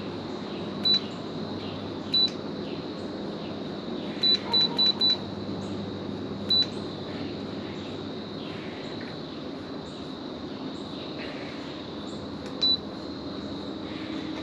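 Ceiling fan's remote receiver giving short high beeps as the light and fan buttons are pressed: eight beeps, four of them in quick succession about four seconds in. Under the beeps is a steady background hum.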